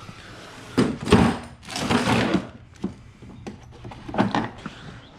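Clattering and scraping of hand tools being handled, in two bursts about a second and two seconds in, with a few sharp knocks after, as a breaker bar and socket are readied for the steering wheel's centre bolt.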